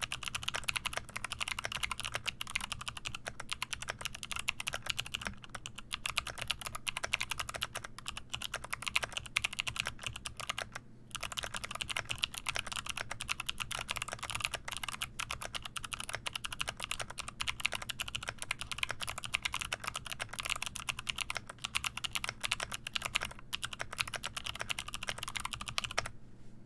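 Typing on a mechanical keyboard with Kailh Box Jade clicky switches (thick click bar), an aluminium plate and a wooden 60% case: a fast, continuous stream of sharp clicking keystrokes. There is a brief pause about eleven seconds in, and the typing stops just before the end.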